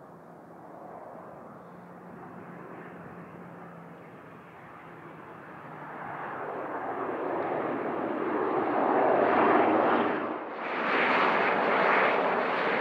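The twin Pratt & Whitney Canada PW127 turboprop engines and propellers of an ATR 72-500 airliner rolling out on the runway after landing. The engine and propeller noise grows steadily louder over the first ten seconds, drops away sharply for a moment, then comes back.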